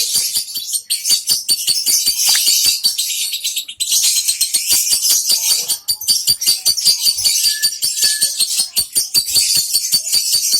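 Lovebird chattering in a long, continuous run of rapid, harsh, high-pitched chirps, broken by brief pauses about four and six seconds in.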